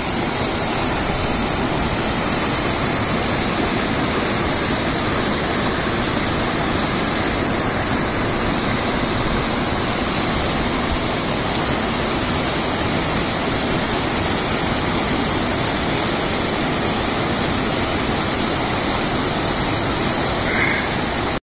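Waterfall with several streams of water pouring down: a steady, even rush of falling water.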